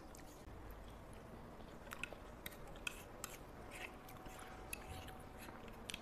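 A fork clicking and scraping against a plate as pasta is twirled, with faint chewing. The clicks are sharp, scattered and irregular.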